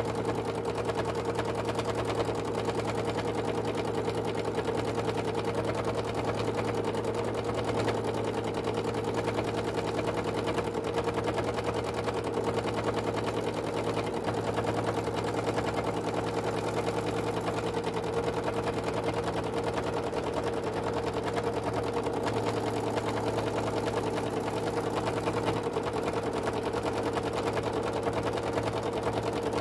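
Domestic sewing machine running steadily at speed, its needle going up and down in rapid, even strokes while free-motion stitching over fabric.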